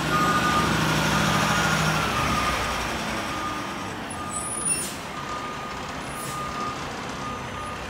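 Mack LR garbage truck running as it manoeuvres, its engine louder in the first two seconds and then easing off, with a backup alarm beeping about once a second. A brief air hiss, typical of an air brake, comes about halfway through.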